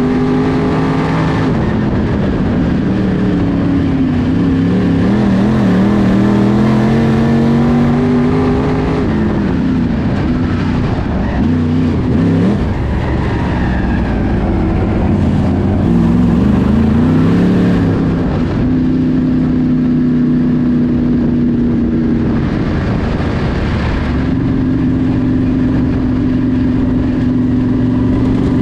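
Dirt late model's GM 602 crate small-block V8 running hard at lap speed, heard from inside the car. The engine note climbs and falls several times as the driver gets on and off the throttle around the track.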